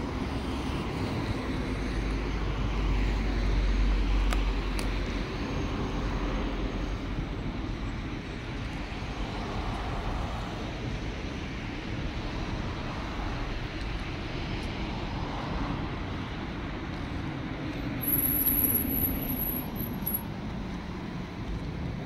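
Outdoor road-traffic noise: a steady rush with a deeper rumble in the first few seconds. A brief high-pitched tone sounds near the end.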